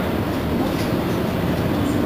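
Mercedes-Benz Citaro C2 Hybrid city bus standing with its diesel engine idling: a steady, loud low rumble.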